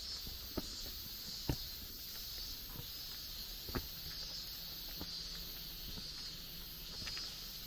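Outdoor mountain-forest ambience: a steady high-pitched hiss that swells and fades slowly, with a few sharp isolated taps about half a second, one and a half seconds and nearly four seconds in.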